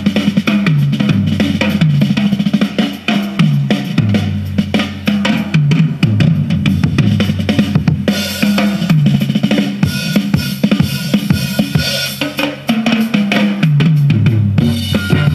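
Instrumental music with a drum kit and a moving bass line, played from a cassette tape on the Fisher PH-480 boombox.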